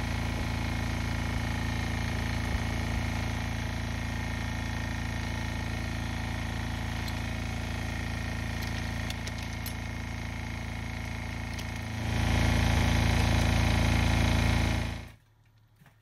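An engine running steadily, with a few faint taps over it. It grows louder about twelve seconds in, then cuts off suddenly near the end.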